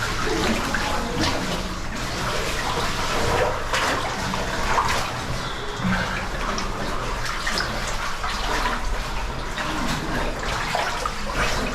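Steady rush of running water echoing in a tight cave passage, with short scrapes and knocks scattered through it.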